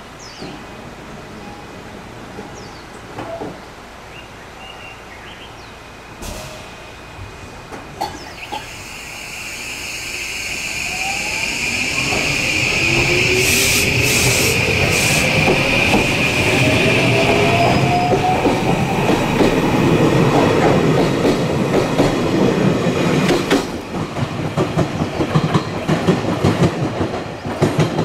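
JR Kyushu 821 series electric train pulling out and accelerating: its traction motors give a whine that rises steadily in pitch from about ten seconds in. The running noise builds to a loud, steady level, then gives way to rapid clattering of wheels over the rail joints as the last cars go by.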